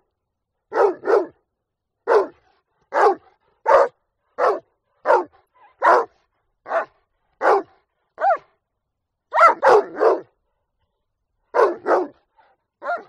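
A dog barking: short single barks about once a second, some coming in quick pairs and one run of three.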